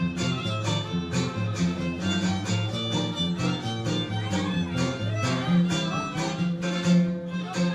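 Huasteco string trio playing a lively instrumental polka: a fiddle carries the melody over steady strummed chords from jarana and huapanguera guitars, the huapanguera also picking the bass notes.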